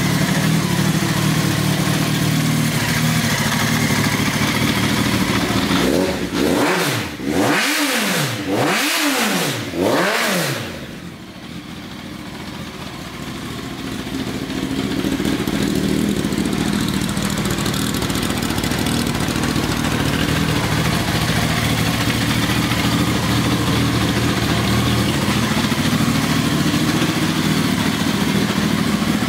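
Honda X-11's inline-four engine idling steadily, blipped up several times in quick succession about six seconds in, each rev rising and falling, then dropping back to a steady idle.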